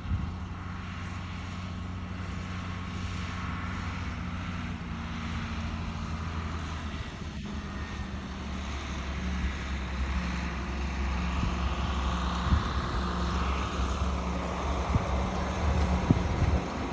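Tractor engine running at a steady speed, a low even hum that grows a little louder in the second half.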